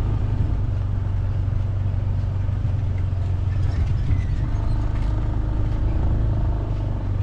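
Small motorcycle engine running at a steady low speed on a rough dirt track, heard from the bike itself as a constant low drone. A higher, steadier engine tone joins in about halfway through.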